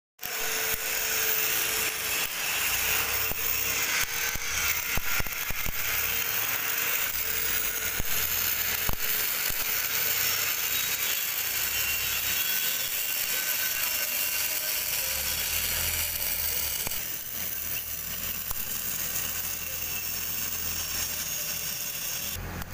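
CO2 MIG welding arc: a steady crackling hiss dotted with sharp spatter pops. It runs without a break and stops just before the end.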